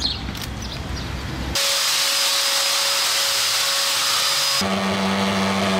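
Motorized disinfectant sprayers running, with spray hissing. The sound cuts abruptly about a second and a half in to a louder, even hiss, and again near the end to the steady running of a small engine driving a backpack mist blower.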